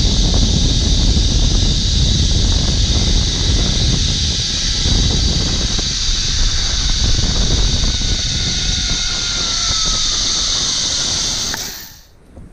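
Zip line ride: heavy wind rush on the microphone over the whir of the trolley's pulleys on the cable, with a whine that slowly falls in pitch. The noise drops away sharply near the end.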